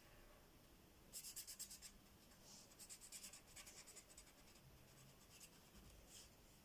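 Faint, quick back-and-forth colouring strokes scratching on paper, in two runs of rapid strokes with a short pause between and a few scattered strokes near the end.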